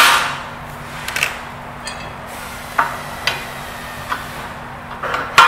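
A cordless impact driver's rapid hammering cuts off right at the start. Then come a few scattered light clicks and knocks as the driver is set down and a metal brake rod is handled and fitted into the caster leg, with a sharper knock near the end, over a faint steady hum.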